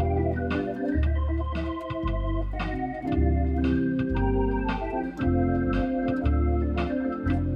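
Hammond SK2 organ playing: held chords and a melody over a low bass line that moves on a steady beat, each beat marked by a sharp attack.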